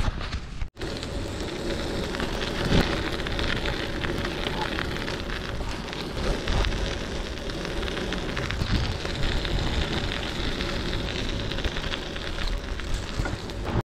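Wind rushing over a chest-mounted camera's microphone and bicycle tyres rolling on asphalt and then gravel while riding, a steady crackly noise with a brief cut-out just under a second in.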